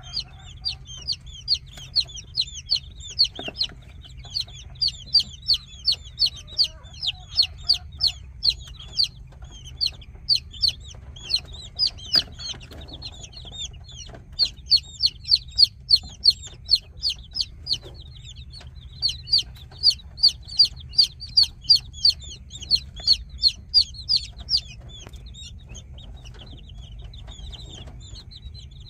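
Baby chicks peeping: rapid runs of short, high-pitched peeps, several a second, broken by brief pauses and thinning out near the end, over a low steady hum.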